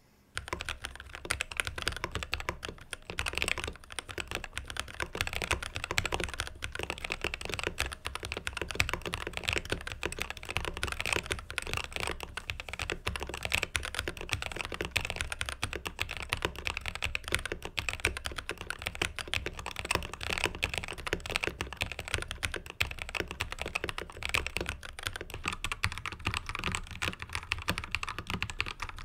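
Continuous fast typing on a Ziyoulang K68 mechanical keyboard: a dense, unbroken stream of keystroke clicks.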